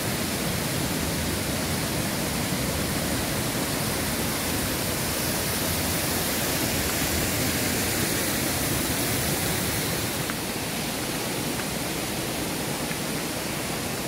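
Waterfall and its stream rushing as a steady wash of water noise, a little quieter from about ten seconds in.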